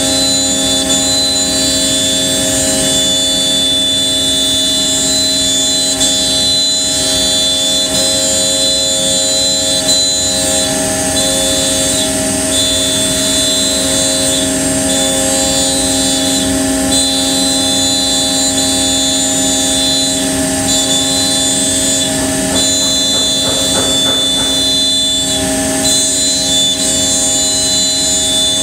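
C.R. Onsrud CNC router's spindle running with its bit milling an HDPE sheet: a loud, steady machine whine made of several held tones. The highest tone briefly drops out a few times as the cut goes on.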